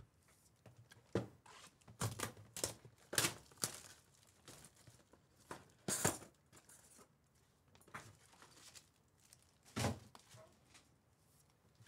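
A cardboard Bowman Chrome Mega Box of trading-card packs being torn open and handled: a series of short rips, crinkles and knocks at uneven intervals as the box is opened and the packs are pulled out.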